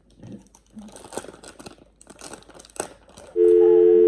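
A plastic snack wrapper being torn open and crinkled, with irregular crackles. About three seconds in, a loud steady two-note tone like a telephone dial tone cuts in and holds.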